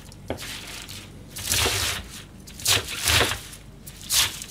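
Kitchen knife chopping cabbage leaves into large pieces on a plastic cutting board: a series of crisp, crunching cuts at an uneven pace.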